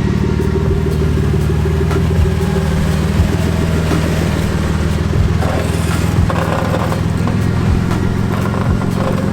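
A motor vehicle's engine running steadily, with a few short, light knocks now and then.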